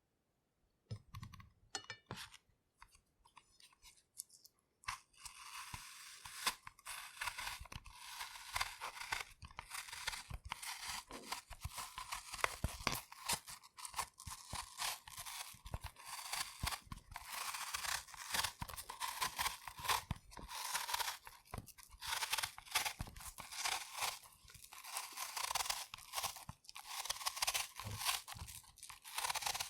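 Apple being peeled with a knife: a few scattered light clicks for the first few seconds, then from about five seconds in a continuous scraping of the blade cutting under the skin, dense with small crackles.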